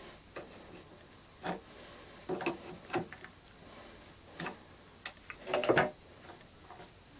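Scattered light knocks and clicks of small hard objects being handled and set down, about ten in all, with the loudest cluster about five and a half seconds in.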